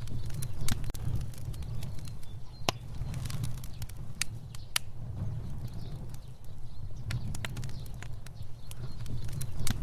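Fire crackling: irregular sharp pops and snaps over a steady low rumble of the flames.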